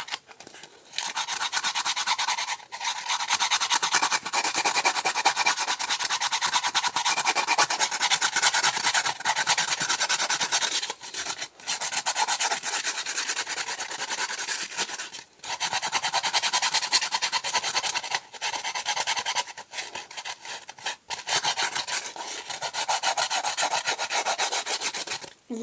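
Sandpaper rubbed over a polystyrene foam boat in rapid back-and-forth strokes, making a dry, rasping scrub. The sanding starts about a second in and breaks off briefly about five times.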